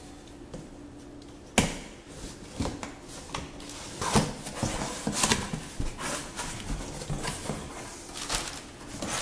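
Cardboard shipping box being opened by hand: a sharp knock about one and a half seconds in, then irregular scraping, tearing and rustling of cardboard as the taped seam is worked and a flap is pulled open near the end.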